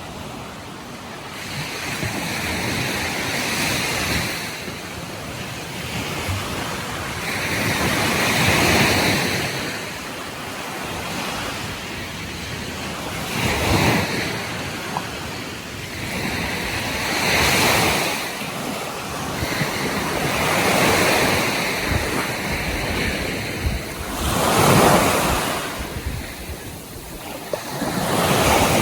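Ocean waves breaking and washing on a beach, surging louder every three to five seconds.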